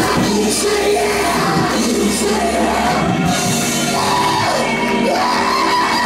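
Church music with a man singing and shouting into a microphone over it, the voice bending up and down in pitch.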